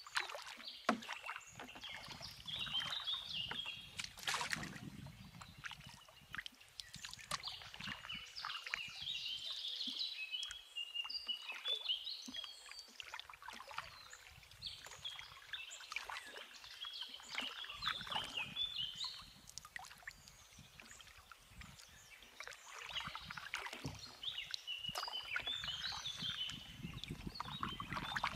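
Canoe being paddled: irregular short splashes and drips of water off the paddle, with small knocks. High chirping calls come in short phrases every few seconds.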